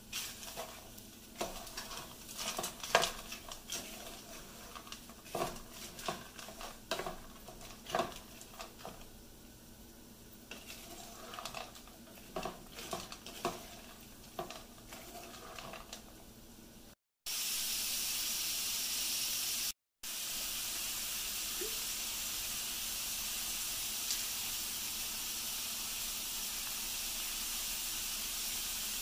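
Wooden spatula stirring ground beef and frozen mixed vegetables in a frying pan, with irregular knocks and scrapes against the pan. About seventeen seconds in, after a brief dropout, a steady sizzle of the mixture frying takes over.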